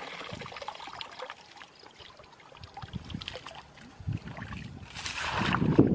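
Rustling and light crackling of grass and dry vegetation, quieter in the middle and growing louder near the end.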